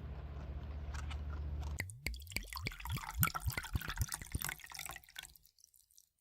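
Water splashing and dripping in a quick, irregular run of plops and drips over a low steady rumble, cutting off suddenly near the end.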